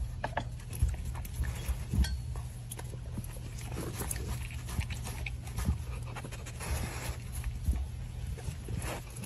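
A dog licking and eating food from a hand through a hole in a wooden fence: many quick, irregular licks and smacks over a steady low hum.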